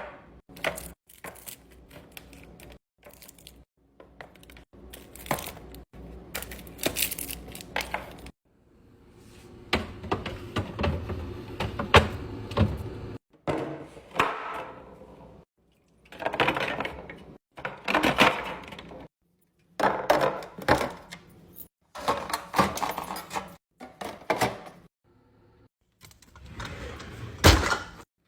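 Food packages and drink containers being handled and set down while restocking: a run of short knocks, rattles and rustles in separate bursts, broken off by sudden gaps.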